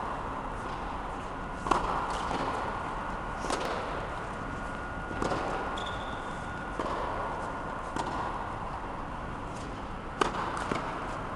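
Tennis ball bouncing on a hard court a few times, then a racket striking the ball on a serve about ten seconds in, a sharp pop and the loudest sound. A steady hum runs underneath.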